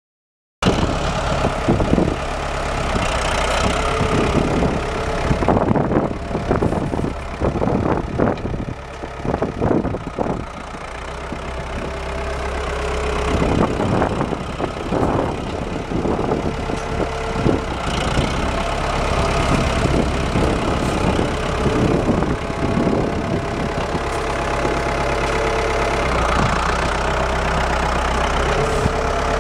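Ford 5610 tractor's four-cylinder diesel engine running steadily as the tractor is driven slowly, with irregular knocks and rattles for several seconds in the first third. The sound cuts in about half a second in.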